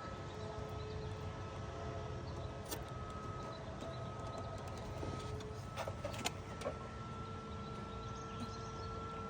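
Faint steady outdoor background hum with two thin steady tones, broken by a few small clicks and taps as the load resistor is handled and pressed into place: one about three seconds in and a cluster around six to seven seconds in.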